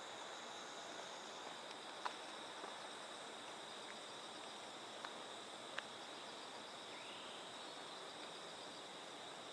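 A steady, high-pitched chorus of insects, likely crickets, with a few faint clicks.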